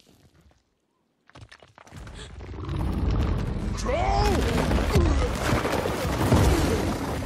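Film sound effects of a huge rock-skinned troll waking and rising: near silence, then from about two seconds in a heavy rumbling with many crashes and thuds that builds and holds, with a short cry that glides up and down near the middle.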